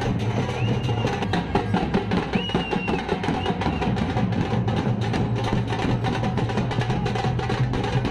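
Procession drums beaten in a fast, dense, steady rhythm, with two short high whistles about half a second and two and a half seconds in.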